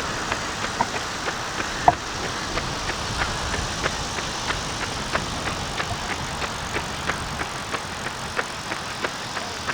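Running footsteps, evenly paced at about three strides a second, as the first fast 400 m interval lap gets under way, over a steady hiss. A single sharp click comes just before the strides start.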